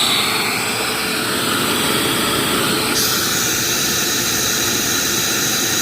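Electric vacuum motors of a portable carpet-cleaning extractor and its vacuum booster running steadily, sucking up flood water: a loud, even rushing whine. About three seconds in, the hiss turns sharper and brighter.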